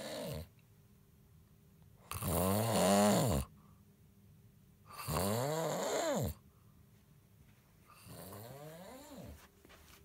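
A man snoring loudly in his sleep, one snore about every three seconds, each rising and then falling in pitch. The snores grow fainter, the last one much quieter than the first.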